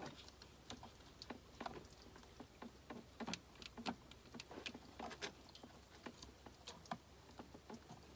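Faint, irregular clicks and taps as the old vacuum pump on an R56 Mini Cooper S's N14 engine is rocked back and forth by hand to break it free of its seal.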